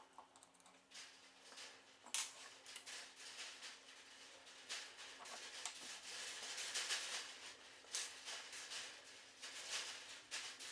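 Hands handling the wooden frame of a folding deck chair as a broken rail is worked free: scattered light knocks and clicks of the rails with scraping and rubbing between, over a faint steady hum.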